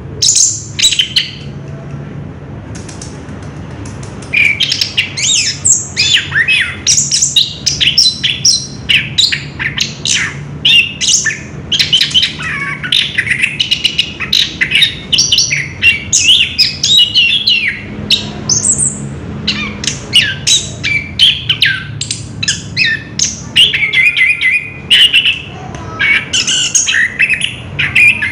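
Orange-headed thrush (anis kembang) singing in a long unbroken run of quick, varied whistled and chattering phrases, the rolling 'ngerol' song, starting in earnest about four seconds in after a short pause. A steady low hum runs underneath.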